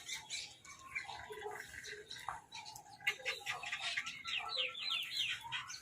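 Several birds calling over one another in a busy mix of chirps and harsher calls, with a quick run of high, sweeping chirps about three seconds in.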